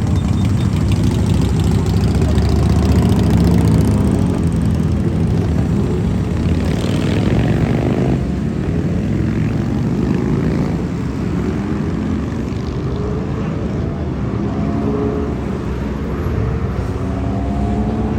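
Motorcycle engines running, several at once, their pitch rising and falling as they rev and move off or pass.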